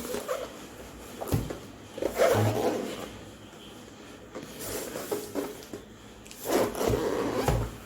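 Cardboard box being handled and turned over: irregular rubbing and scraping with a few light knocks.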